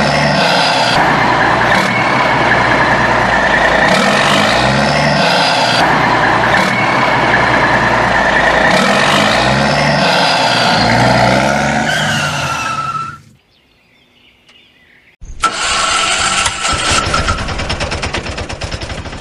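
Motor-vehicle engine sound effect running with a rising rev about every four seconds, cutting off about 13 seconds in. After a two-second gap, a faster, rattling small-engine sound starts.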